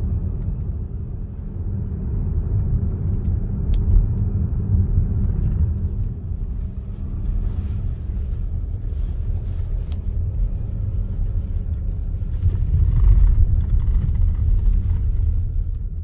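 Steady low rumble of a car being driven, engine and tyre noise heard from inside the cabin, swelling a little near the end.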